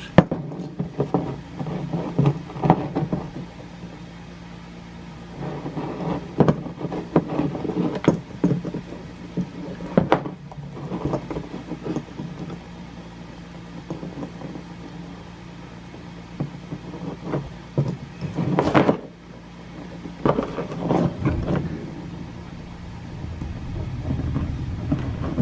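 Scattered light clicks and rubbing of hand work as steel aircraft cable is fed through a small crimp sleeve and a leash hook, over a steady low hum.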